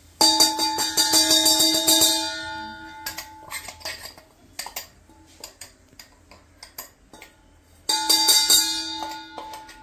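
Stainless steel mixer-grinder jar knocked rapidly, about seven knocks a second, to shake ground moong dal paste out into a wok, ringing with a steady metallic tone. This happens twice, for about two seconds just after the start and again about eight seconds in, with lighter clicks of metal in between.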